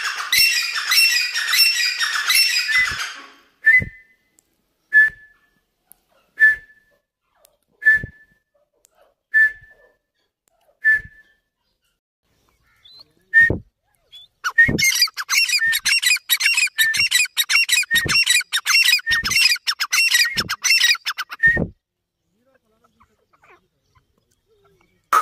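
Teetar (francolins) calling loudly: about three seconds of rapid, repeated calls, then single short calls about every second and a half, then another long run of rapid repeated calling from about 14 to 21 seconds in.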